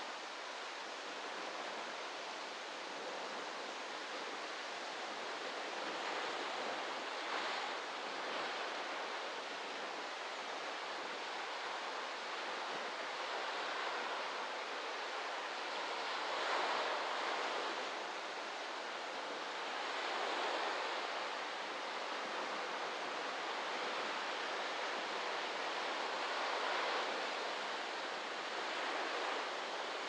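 Small ocean waves breaking on a beach: a steady wash of surf that swells and fades every few seconds as each wave comes in.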